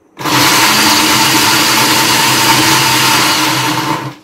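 Black & Decker food processor's chopper attachment chopping almonds: the motor starts a moment in, runs steadily for about four seconds and cuts off near the end, pulsed by hand.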